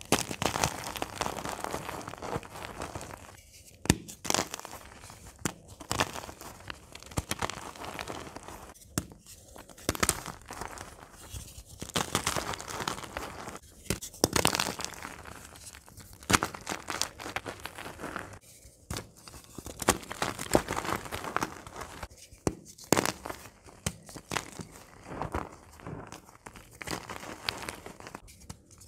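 Blocks of gym chalk being squeezed and crumbled in the hands, giving dense crunching and crackling with many sharp little snaps as pieces break and powder sifts down. The squeezes come in bursts separated by brief pauses every few seconds.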